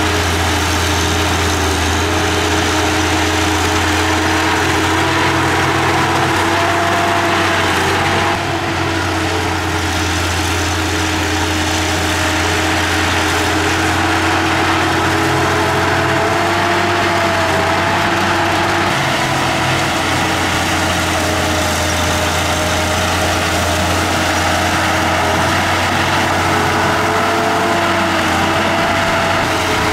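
Diesel engine of a Komatsu D31P small bulldozer running steadily, its pitch wavering slightly.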